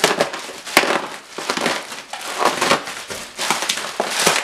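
Bubble wrap being crushed and popped: a dense, irregular run of crackles and sharp pops.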